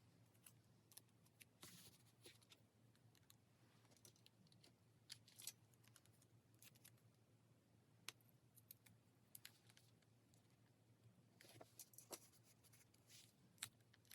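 Faint, irregular clicks and taps of pens and stationery being handled on a desk, with a couple of brief scratchy rustles, over a low steady hum.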